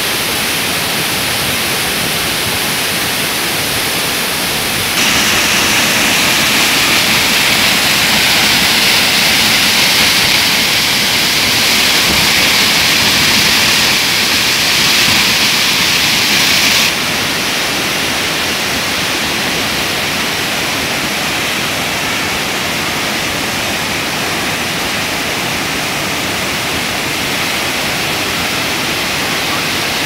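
Large waterfall crashing over rocks: a steady rush of falling water. It turns louder and hissier from about five seconds in, then drops back to the steadier rush about seventeen seconds in.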